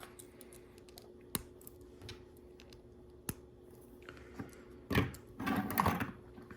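Plastic LEGO bricks clicking as they are handled and pressed onto one another: a few single sharp clicks, then a louder run of clattering clicks about five seconds in.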